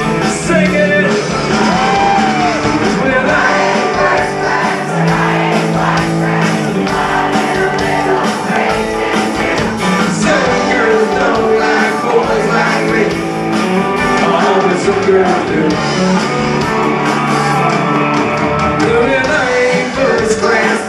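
Live band playing loudly, with a male lead singer over drums, electric guitars and keyboards.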